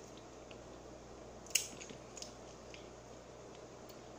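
Faint mouth sounds of chewing fried chicken: wet smacks, with one sharp click about a second and a half in and a few softer clicks after.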